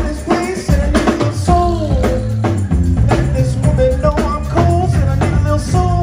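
A live band playing: a steady drum beat with tambourine, an electric bass line, and horns including a baritone saxophone carrying the melody, with a singer's voice.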